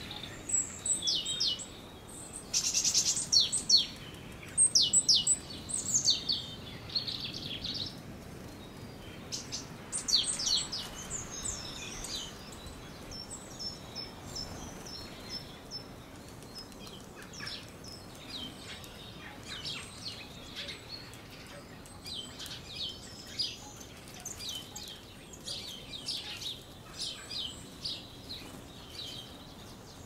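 Small garden songbirds chirping in quick runs of short, high, falling notes, loudest in several bursts over the first dozen seconds, then fainter and more scattered.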